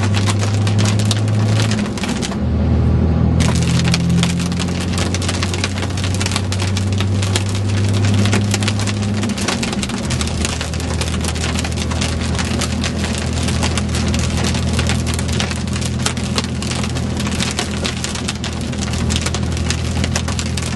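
Heavy rain hitting a vehicle in a steady dense crackle, over a low engine and road drone that shifts pitch about two seconds in and again about ten seconds in. The crackle briefly thins out around the first shift.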